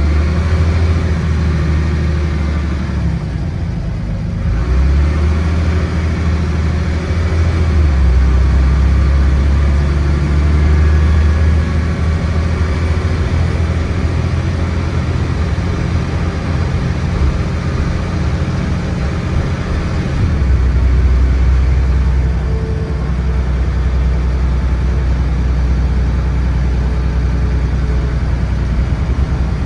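Dennis Trident double-decker bus's diesel engine and Voith automatic gearbox heard from inside the moving bus. The deep engine drone rises and drops in steps several times as the bus pulls and eases off.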